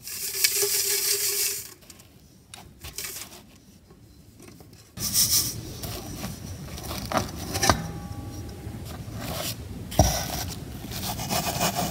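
Sand and crushed rock sliding and rattling in nested brass and stainless steel soil sieves as they are handled and lifted apart, with light metal clinks and a sharp knock about ten seconds in as a sieve is set down.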